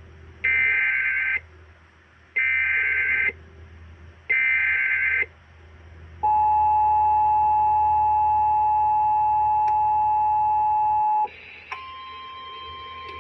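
Emergency Alert System activation: three buzzy SAME digital header bursts, each about a second long and two seconds apart, then the two-tone EAS attention signal held steady for about five seconds. A fainter steady tone starts near the end. This is the lead-in to a relayed severe thunderstorm warning.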